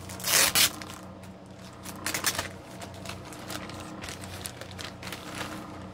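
Rustling and crinkling of clothes and packaging being rummaged through, loudest about half a second in and again about two seconds in, over a steady low hum.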